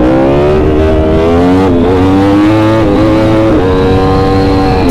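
Sport motorcycle engine accelerating through the gears. Its pitch climbs, dips briefly at two gear changes, then holds steady.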